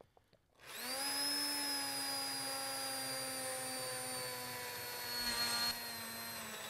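Heavy-duty commercial immersion blender switched on about half a second in, spinning up and running steadily with its blade down in a pot of cooked winter squash soup, pureeing it. Its pitch sags slowly under the load, with a brief louder churning a little after five seconds.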